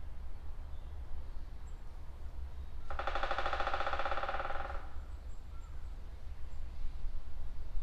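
Woodpecker drumming on a tree trunk: one rapid roll of strokes, about two seconds long, starting about three seconds in.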